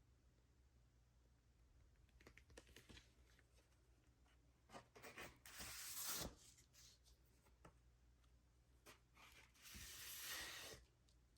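Faint handling of a vinyl record's packaging: light clicks and taps, then two longer rustling, sliding sounds of about a second each, one around five to six seconds in and one near the end.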